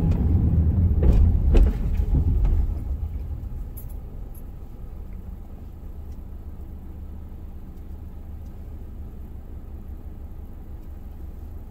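Car driving, heard from inside the cabin: a low road and engine rumble, louder for the first few seconds with a couple of short knocks, then settling into a quieter steady drone.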